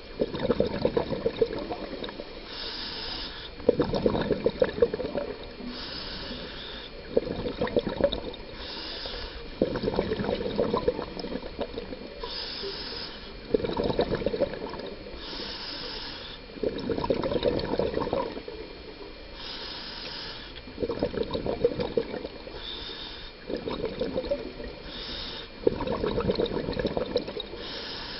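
Scuba diver breathing underwater through a demand regulator: a short hiss on each inhale, then a longer bubbling gurgle of exhaled air, repeating about every three seconds.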